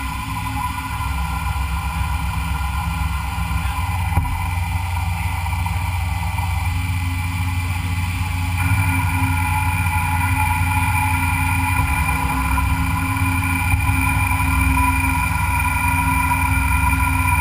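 A metalworking machine tool running steadily: a low motor hum with a steady whine over it. About eight and a half seconds in, the higher whine gets louder.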